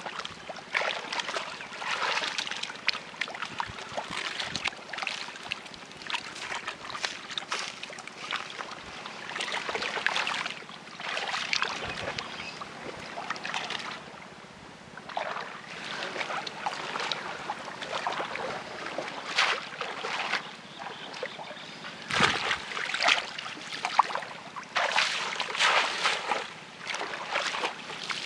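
Shallow muddy water splashing and sloshing in irregular bursts as a bamboo plunge basket is pushed down into it and a hand gropes inside the basket for fish, with short pauses in between.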